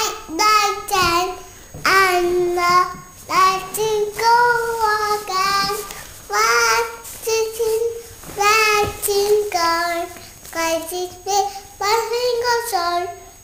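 A toddler singing without clear words in a high voice: a run of short melodic phrases with held, gliding notes and brief pauses between them.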